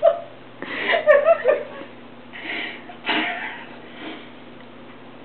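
A dog making short whining, grumbling vocal noises in several bursts, the loudest about a second in.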